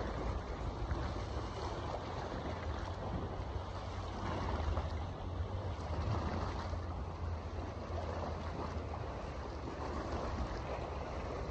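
Sea waves washing against a rocky shoreline, a steady rushing with small swells every few seconds, under a low rumble of wind buffeting the microphone.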